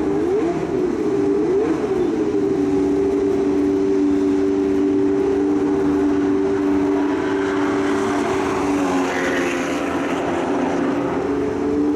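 Car engine at high revs, its pitch rising and falling quickly for the first couple of seconds, then held steady for several seconds with a slight dip about nine seconds in.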